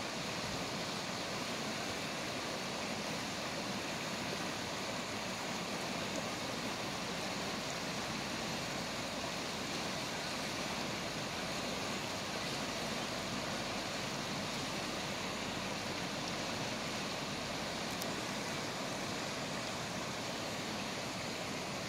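River whitewater rushing steadily over the rapids and wave features of a whitewater park, a continuous even noise.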